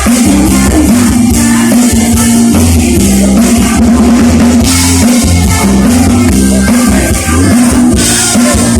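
Loud live band music with a drum kit beat and a heavy bass line.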